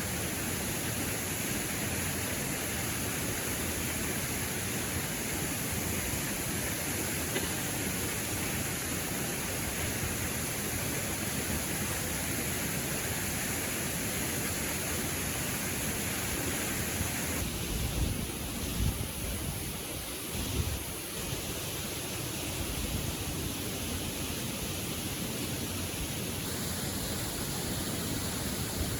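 Steady rushing of a waterfall and river, an even hiss of flowing water. About two-thirds through the sound shifts abruptly, with a few low thumps.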